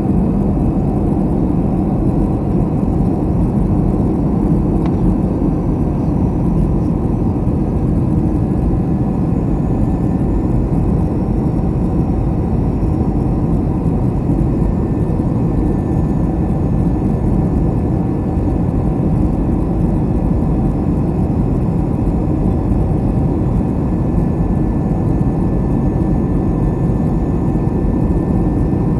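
Airbus A321 jet engine and airflow noise heard inside the passenger cabin in flight: a steady, mostly low-pitched roar with a faint constant hum above it.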